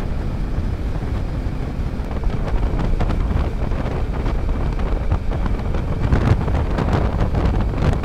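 Wind rushing and buffeting over the microphone of a Kawasaki Versys-X 300 motorcycle cruising at road speed, with the bike's engine and tyre noise running steadily underneath.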